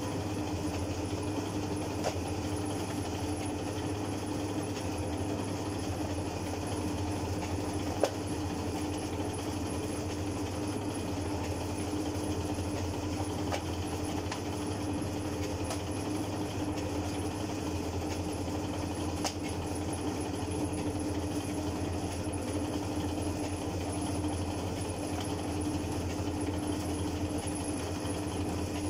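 Motor-driven dough-sheeting roller machine running steadily as dough sheets are fed through its rollers: a constant mechanical hum, with a few light clicks and one sharper knock about eight seconds in.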